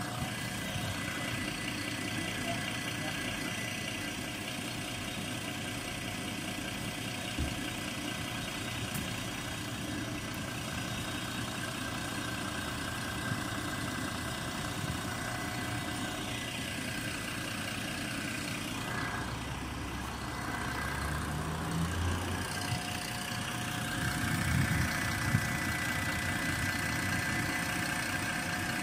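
Mercedes-Benz Citaro O530 Facelift bus's OM 906 hLA six-cylinder turbodiesel idling steadily, with the Voith DIWA automatic gearbox loud over it as steady high tones. The sound grows a little louder about two thirds of the way through.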